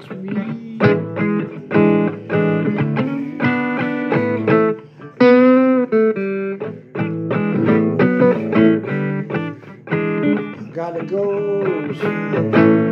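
Blues music led by guitar playing a run of single notes, with one wavering held note about five seconds in.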